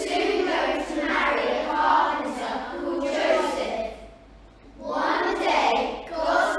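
A large group of children's voices in unison, delivered in long phrases with a brief pause about four seconds in.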